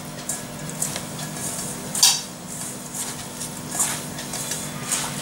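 A hand mixing grated potatoes with corn flour and salt in a stainless steel bowl: a rustling hiss with irregular knocks and scrapes against the bowl, the loudest about two seconds in.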